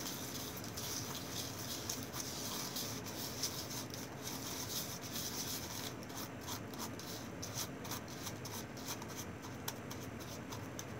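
A paintbrush stirring play sand mixed with black paint in a small bowl: a steady, gritty scraping, with quicker scratchy strokes in the second half.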